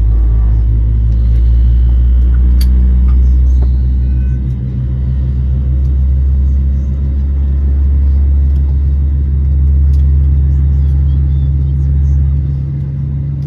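Steady low rumble and hum inside the cabin of an Airbus A320neo on the ground before takeoff. The rumble eases slightly about four seconds in and again near the end.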